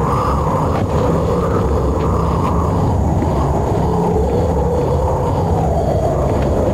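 Loud, steady low rumbling drone, with no clear start or stop.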